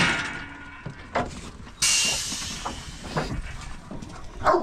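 Air-operated Te Pari sheep weigh-and-draft crate firing its gates: a sudden blast of compressed-air hiss about two seconds in that fades over a second or so, with a few knocks of metal gates and a lamb moving in the crate around it.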